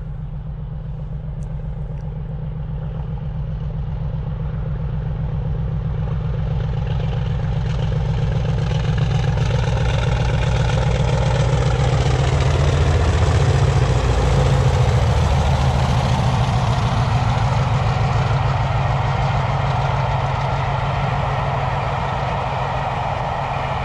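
Class 50 diesel locomotives, English Electric 16-cylinder engines throbbing under power, hauling a train past. The sound swells to a peak a little past halfway, the pitch dropping as it goes by, then slowly fades with the rumble of the coaches.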